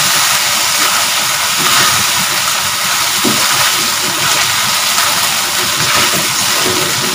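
Tomato and onion wedges sizzling in a hot wok with a steady hiss as they are stir-fried and tossed with a spatula.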